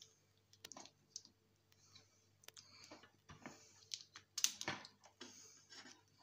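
Pliers clicking and scraping against a sheet-steel chassis as a cable is worked free of it: scattered sharp clicks, loudest in a short cluster a little past halfway.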